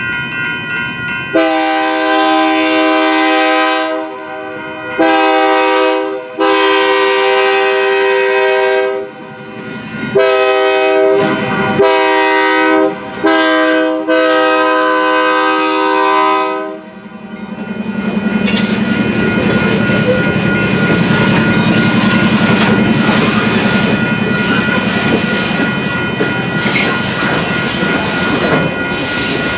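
BNSF freight locomotive's air horn sounding a grade-crossing warning, six blasts, the last held long and cut off about two-thirds of the way through. The locomotive then rolls by, its diesel engine droning low while the wheels clatter over the rails, with the crossing's warning bell ringing throughout.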